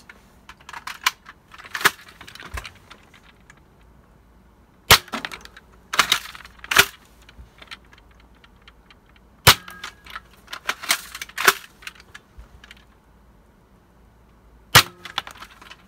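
JET CEDA spring-powered foam-dart blaster firing ACC darts into a chronograph: three sharp plastic cracks about five seconds apart, with smaller plastic clacks of handling and priming between them.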